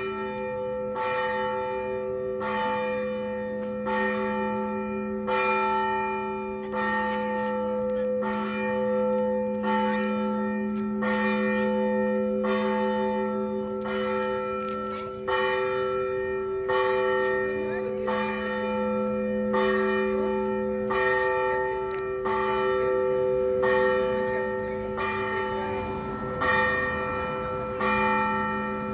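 Russian Orthodox church bells rung together to call to a service. Smaller bells are struck in a steady repeating pattern, a little faster than one stroke a second, over the long hum of the larger bells. The deepest hum drops out about two-thirds of the way through and comes back near the end.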